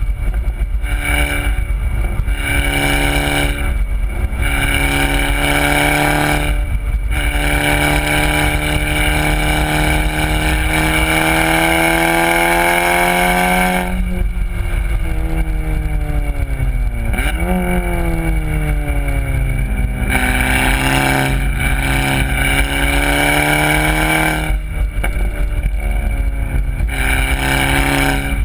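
Volkswagen Golf R's turbocharged four-cylinder engine with a Borla exhaust, driven hard: the engine note climbs several times with brief breaks between, then makes one long climb to high revs. About halfway it drops away as the car slows, with a short rev blip on a downshift, then climbs again.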